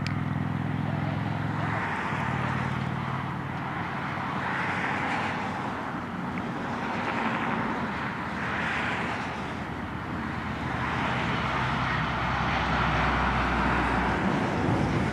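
Highway traffic going by: a large motorhome's engine drone and tyre noise, then cars passing, the tyre hiss swelling and fading every couple of seconds.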